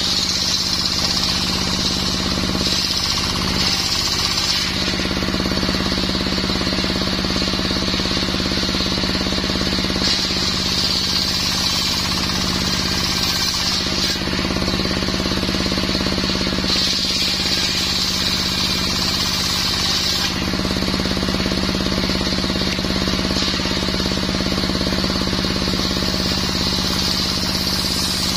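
Engine-driven circular saw running steadily and sawing mahogany, with a higher hissing band that rises and drops away several times as the blade works through the wood.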